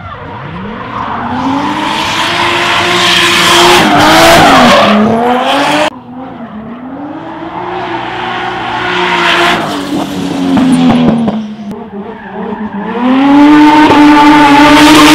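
Drift cars sliding past one after another, engines held high in the revs with brief dips, over a hiss of screeching, sliding tyres. There are three separate passes, each swelling as the car nears. The first cuts off abruptly about six seconds in, and the last, near the end, is the loudest.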